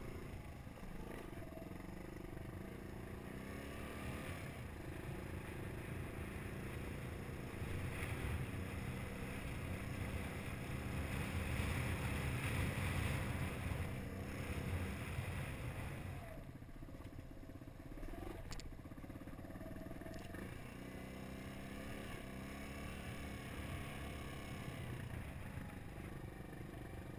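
Suzuki DR200's single-cylinder four-stroke engine running as the motorbike rides a rough dirt track, its pitch rising and falling with the throttle. It grows louder around the middle, then eases off for a couple of seconds before picking up again.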